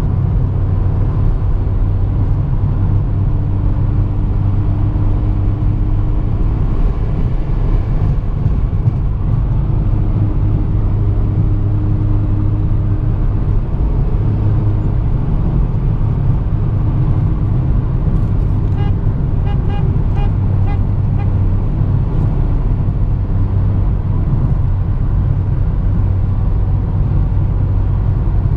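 Steady low rumble of a car's engine and tyres on the road, heard from inside the cabin while cruising. About two-thirds of the way through comes a quick run of about six beeps.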